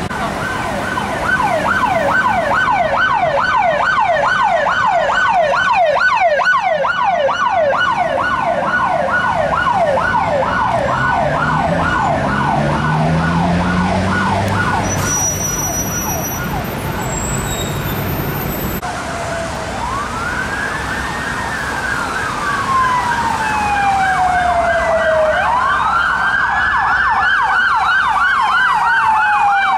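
UK emergency vehicle sirens. A fast yelp sweeps up over and over, about three times a second, for most of the first twenty seconds. After a break a slower wail takes over, rising and then falling twice.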